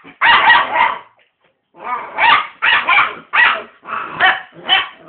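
Six-and-a-half-week-old American Akita cross puppies barking and yapping in play: a loud burst of yaps at the start, a pause of about a second, then a quick run of short, high barks, about two a second.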